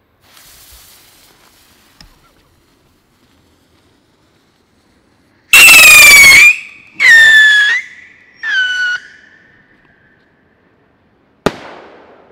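Funke three-stage Triller (howling) firework rocket: a faint hiss as it is lit, then three loud whistling stages a few seconds in, each pitched a little lower than the one before, fading out after the third. A sharp bang near the end as the bouquet bursts.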